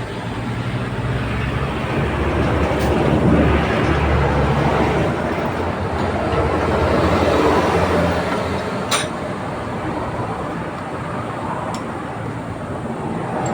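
Motor vehicle engines running past, swelling and fading, with a sharp click about nine seconds in.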